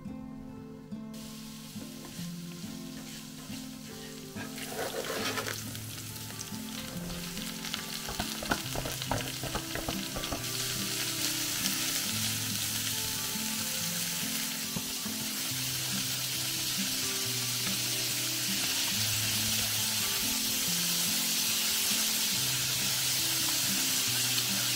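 Chopped green onions sizzling in hot oil in a frying pan; the sizzle grows louder in steps as ground meat is added, with scattered clicks and scrapes from a wooden spatula, then settles into a loud steady frying sizzle. Background music with low notes plays underneath.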